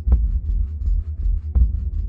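Background music: a slow, bass-heavy electronic track with a deep beat about every second and a half, held notes and fast light ticks over it.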